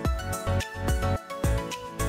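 Background music with a steady beat, about two beats a second, over sustained instrumental tones.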